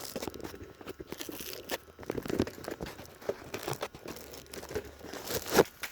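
Handling noise: irregular clicks, rustles and light scrapes of things being moved and handled, with a sharper knock near the end.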